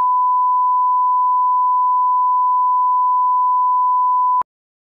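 Test-signal reference tone of a bars-and-tone leader: a single steady, pure electronic beep at one unchanging pitch that cuts off suddenly near the end.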